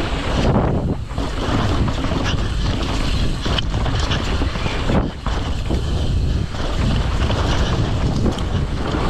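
Heavy wind rush on the microphone of a downhill mountain bike ridden at speed on a loose, rocky course, mixed with the rattle of bike and tyres over rough ground, with a couple of brief dips in the noise.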